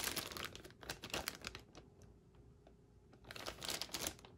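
Clear plastic bags holding plastic model-kit sprues crinkling as they are handled, in two bouts with a quiet pause of about a second and a half between them.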